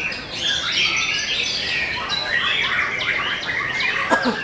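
Many domestic canaries singing at once from contest cages: a dense, unbroken tangle of overlapping fast trills and warbles.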